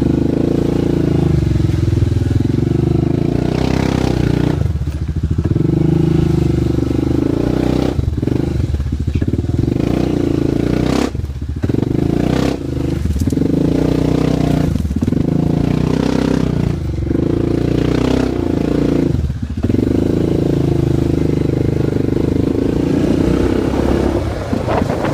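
Yamaha Grizzly 700 ATV's single-cylinder engine running under way, its note rising and falling with the throttle and easing off briefly several times.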